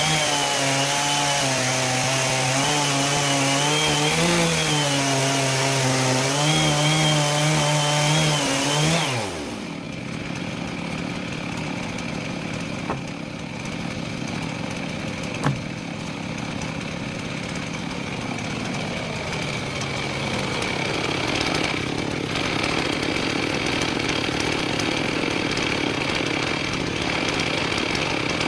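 Chainsaw on a chainsaw mill cutting along a log at full throttle, its engine note wavering with the load. About nine seconds in the engine note drops away sharply, leaving a lower, rougher running sound with a couple of light clicks. The sound grows a little louder again toward the end.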